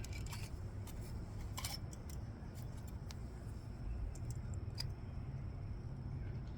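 A few faint clicks and light taps from small metal parts being handled, a stainless steel washer being dabbed with silicone, over a low steady hum.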